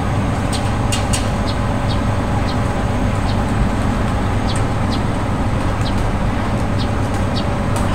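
Steady low rumble of engines, with short high ticks repeating irregularly about twice a second.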